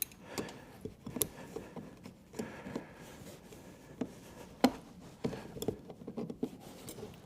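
Scattered light clicks, knocks and rustling as seat straps are stretched with pliers and hooked into a chair frame, with a sharper knock about four and a half seconds in.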